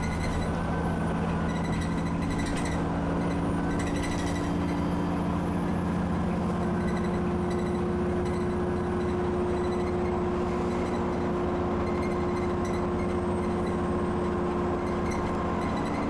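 Alexander Dennis Enviro 400 bus engine pulling steadily under load, heard from inside the cabin, with steady whining tones over the engine's drone; one tone steps up in pitch about six seconds in. The turbo has a whine that the uploader calls very nasty wheezing. A couple of brief rattles come in the first few seconds.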